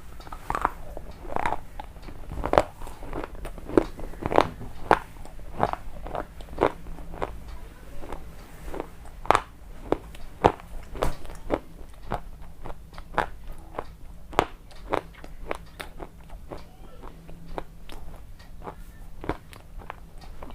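Chips being bitten and chewed close to the microphone: a run of sharp, crisp crunches, roughly one to two a second.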